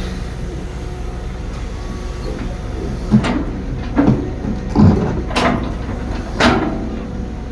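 Excavator's diesel engine running steadily, with about five loud clanks and scrapes a second or so apart in the second half, as of the bucket working against soil, rock or a truck bed.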